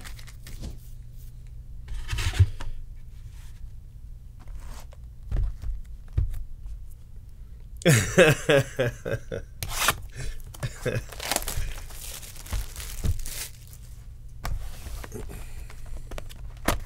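Cardboard trading-card boxes being handled and slid about on a table: scattered scrapes, taps and rustles over a steady low hum, with a brief murmur of voice about eight seconds in.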